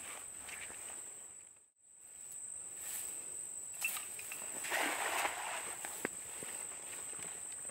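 A thrown cast net hitting the water with a brief splash about five seconds in, over a steady high insect drone.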